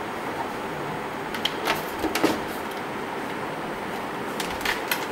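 Steady background hiss with a few light clicks and knocks: a couple about two seconds in and a few more near the end.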